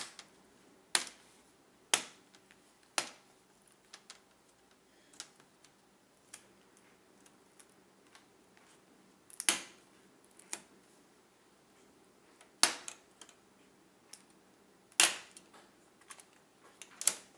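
Snap-in plastic clips of an HP laptop's display bezel popping loose as the bezel is pried off by hand: about ten sharp plastic snaps at irregular intervals, with quiet between.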